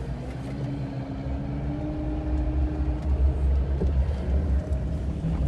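Ram ProMaster van driving, heard from inside the cab as a steady low engine and road rumble. A faint engine tone climbs slowly over the first few seconds as the van gathers speed.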